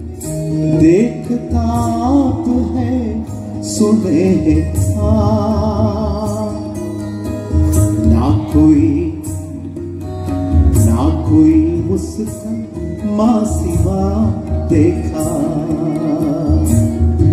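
Live Sufi devotional song: male voices singing long, wavering, ornamented lines over a sustained accompaniment, with tabla strokes keeping a steady beat, amplified through a PA system.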